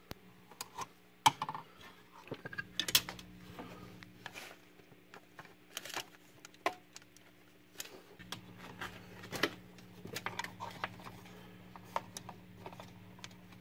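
Handling sounds of plugging in a plug-in temperature sensor: a cord pushed into a wall outlet and the probe's jack clicked into the side of a Sonoff TH10 switch, with scattered clicks, knocks and plastic rattles as the cable is handled. A steady low hum lies underneath.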